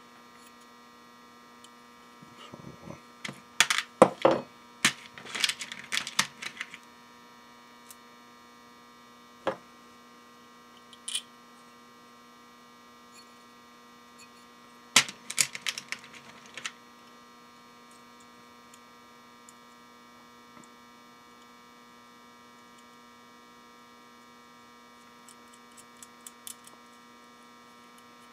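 Small metal parts clicking and clattering on a workbench as a metal heat-sink strip and small screws are handled. The clicks come in two bursts of rapid clicking a few seconds long, with scattered single clicks between and a faint patter near the end, over a steady electrical hum.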